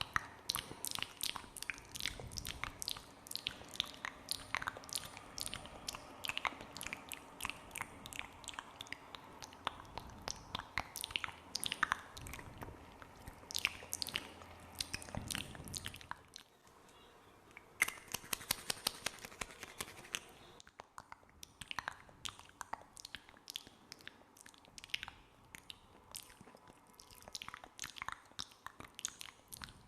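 Close-miked ASMR wet, sticky mouth sounds: a dense run of quick clicks and smacks, easing off briefly a little past halfway before picking up again.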